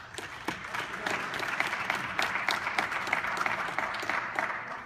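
Audience applauding, many hands clapping at once, swelling through the first second and tapering off near the end.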